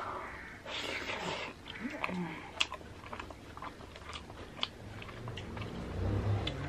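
Close-up mouth sounds of a man eating rice and curry by hand: chewing with many sharp wet clicks and smacks. About a second in comes a hissing breath drawn in, as from spicy food burning the mouth, and a low hum sets in near the end.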